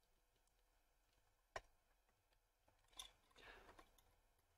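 Faint handling noise from fingers working a connector clip on a car amplifier's circuit board: a click about a second and a half in, another about three seconds in, then a brief scrape.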